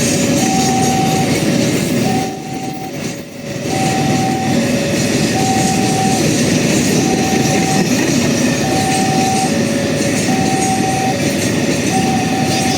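Railway level-crossing siren sounding a two-tone alarm, a higher and a lower note alternating about once every second and a half, over the steady noise of a train running through the crossing, which dips briefly about two seconds in.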